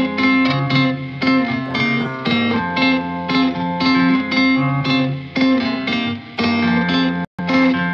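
Background music: a plucked guitar melody with a steady rhythm, broken by a brief gap near the end.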